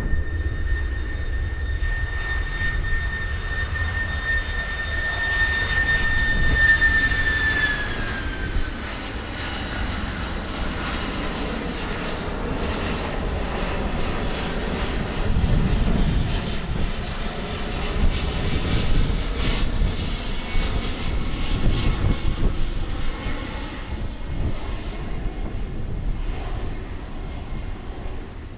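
Jet airliner passing low overhead. A high engine whine holds steady, then drops in pitch about eight seconds in as the plane goes by. A broad jet rumble follows and fades near the end.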